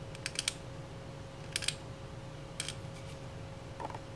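The back of an X-Acto hobby blade scraping along a resin model part, rescribing its panel lines: three or four short, high scratches about a second apart.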